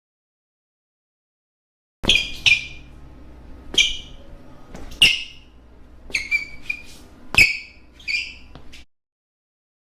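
A string of short, high chirping squeaks, each falling in pitch and several starting with a sharp click, running from about two seconds in to near the end, over a faint low hum.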